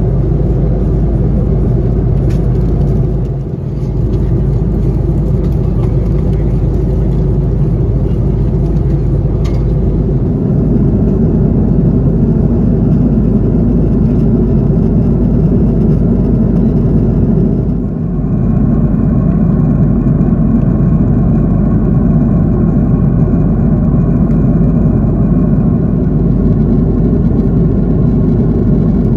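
Airbus A330-300 airliner heard from inside the cabin: a steady, loud rumble of jet engines and airflow. It dips briefly twice, and after the second dip a faint steady whine joins in.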